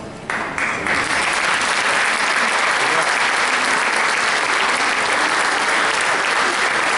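Audience applauding: clapping breaks out suddenly just after the start, swells within a second and then goes on steadily.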